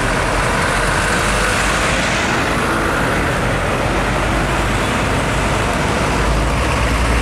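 Roadside traffic: heavy diesel trucks and a car passing, with engine and tyre noise. Near the end a Hino 500 tanker truck's diesel engine rumble grows louder as it draws close.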